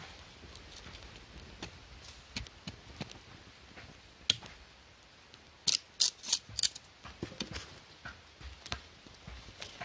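Small campfire of dry sticks and bamboo crackling, with scattered sharp pops and a quick run of about five loud snaps about six seconds in.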